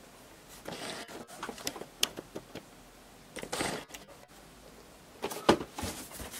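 A cardboard action-figure window box handled: scattered rustles and light taps as it is turned in the hand, then louder knocks about five seconds in as it is set down on a table.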